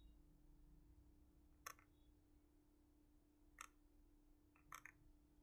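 Faint computer mouse clicks: single clicks about every two seconds and a quick double click near the end, over a low steady hum.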